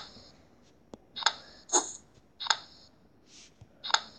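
Tile-flip sound effects from a tablet memory-matching game: about four short, bright flip sounds in quick succession as cards are turned over, with a faint click.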